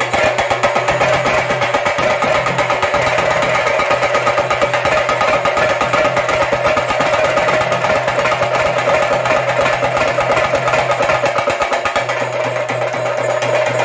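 Chenda drums beaten with sticks in a fast, unbroken rhythm of strokes, over a steady ringing tone; the playing gets a little softer near the end.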